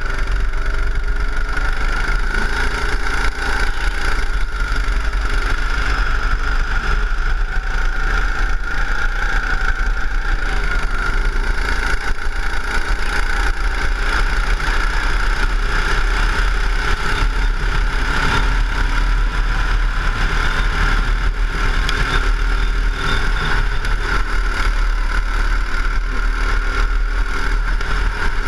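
Go-kart engine running at speed on the track, its pitch rising and falling as the driver accelerates and lifts through the corners, heard from on board the kart.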